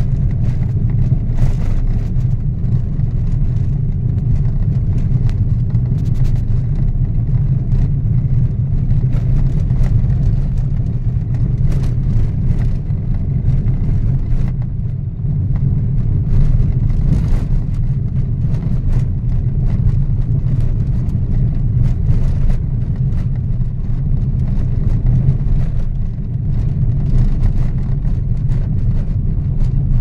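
A moving car's steady low road and engine rumble, heard from inside the cabin while driving.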